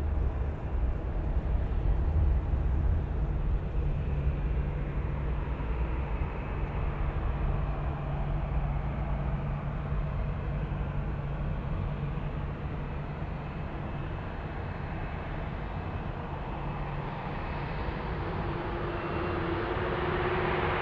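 Boeing 787-8 jet engines (Rolls-Royce Trent 1000) running at idle with a steady hum and faint whine as the airliner taxis and lines up on the runway. Near the end the engines begin spooling up for the takeoff roll, growing louder with a rising tone.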